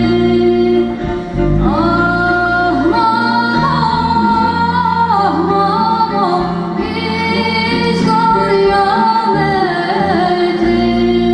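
A woman sings a Rumelian folk song solo in long, bending melodic phrases over sustained instrumental accompaniment.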